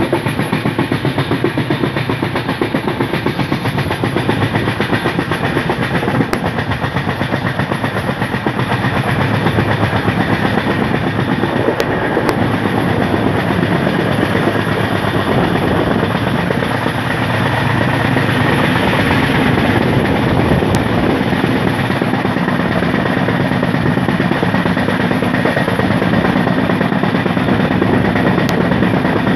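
Double-decker express train running at high speed, heard from aboard: a steady loud rumble of wheels on rails with a light clickety-clack.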